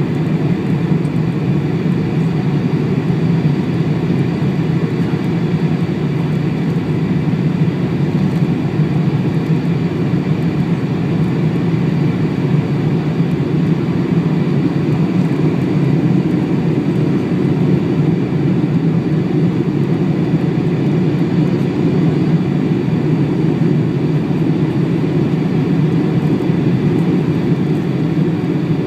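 Cabin noise inside a Boeing 747 on approach to landing with its flaps extended: a steady low drone of jet engines and rushing air.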